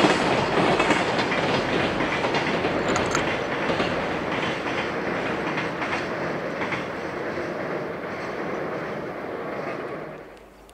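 A freight train running away along the line, its wheel and track noise fading steadily, then cut off sharply about ten seconds in.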